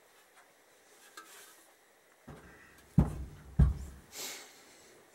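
Motorcycle swingarm being set down on a cloth-covered workbench: a soft bump, then two heavy knocks about half a second apart, followed by a brief scuff.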